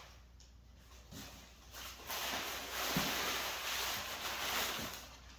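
Packing paper rustling and crinkling as it is handled and pulled out of a box, loudest for about three seconds from two seconds in, with a few soft knocks of handling.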